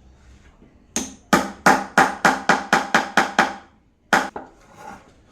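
Hammer blows on wood: a single strike, then a quick run of about nine even blows at roughly four a second, then one last strike.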